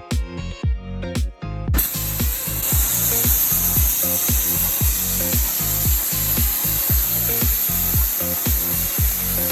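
Background electronic music with a steady kick-drum beat, joined about two seconds in by a loud, steady power tool cutting out the brake booster mounting plate.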